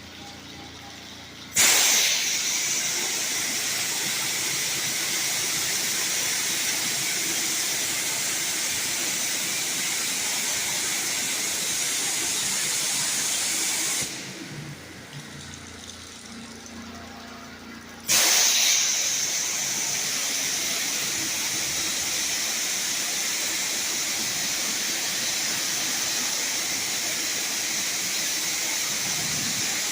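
Carwash spray wand spraying soap in a steady hiss, turned on about a second and a half in, shut off for about four seconds in the middle, then turned on again. A low hum of equipment runs beneath it.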